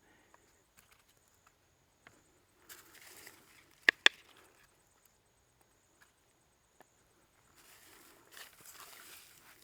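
Soft rustling and shuffling, with two sharp knocks a fraction of a second apart about four seconds in.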